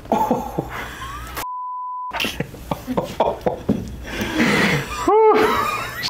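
A censor bleep, a steady beep tone of about two-thirds of a second, blanks out a word about a second and a half in. Around it are short clicks, gasps and exclamations, with a drawn-out exclamation rising and falling in pitch near the end.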